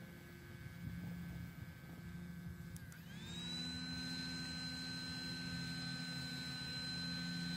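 Small power-bank-driven blower fan of a mini wood stove whining steadily. About three seconds in there is a click, the whine dips briefly in pitch and then settles into a louder, steady whine with an added high tone, as the fan is turned up and the flames are driven higher.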